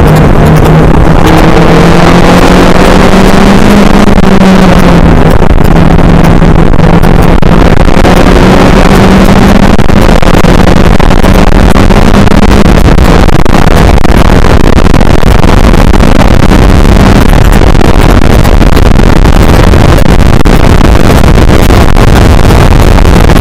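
Race car engine heard on board at racing speed, its drone stepping up and down in pitch a few times, under heavy wind and road noise. After about 17 seconds the engine tone sinks into the rushing noise.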